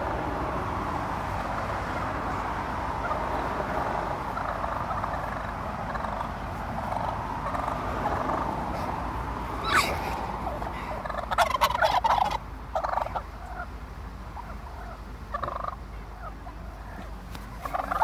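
Wild turkey toms gobbling, with the loudest run of rapid gobbles about two-thirds of the way in and shorter bursts near the end.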